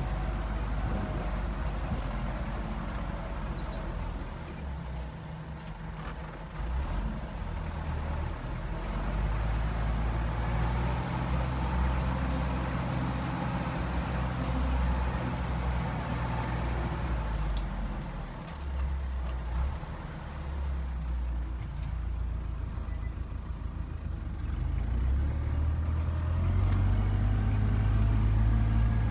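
Belarus MTZ 820 tractor's four-cylinder diesel engine running steadily while pulling a disc plough through dry stubble, heard from inside the cab. The engine note wavers and grows louder over the last few seconds.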